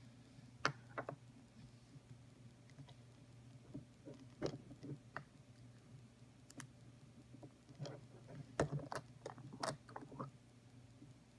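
Faint scattered clicks and taps of hands handling a glass Pilot Iroshizuku ink bottle, working at the cord round its neck and gripping its screw cap; the clicking is busiest in the last few seconds, with a low steady hum underneath.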